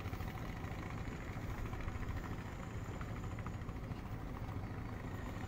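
A boat's engine running steadily at low revs.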